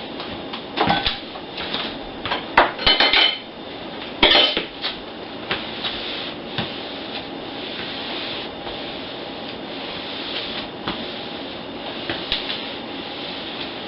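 Dishes and cutlery clinking and clattering as they are handled. There is a quick run of knocks and clinks in the first few seconds, then only occasional single clinks over a steady hiss.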